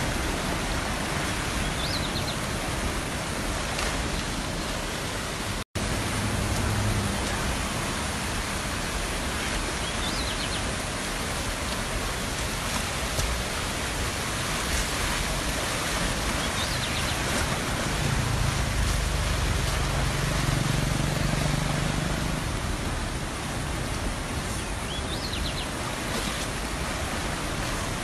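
A flooded stream rushing past in a steady, even wash of water noise. The sound cuts out for an instant about six seconds in.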